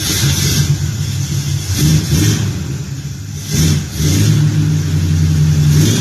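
1967 Camaro engine firing up abruptly on its newly installed MSD ignition and running, with a few throttle blips before settling into a steady high idle. The mechanic suspects the timing is maybe a little advanced at start-up.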